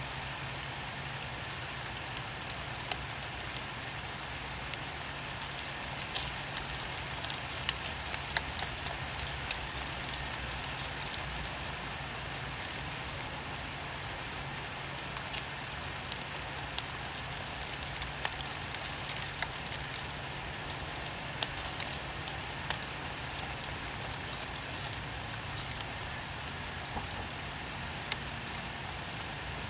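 Steady rain: a constant hiss with many scattered sharp ticks of individual drops, over a low steady hum.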